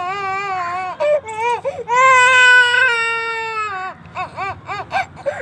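A small child crying: short sobbing cries, then a long held wail about two seconds in that falls away at its end, followed by short broken whimpers.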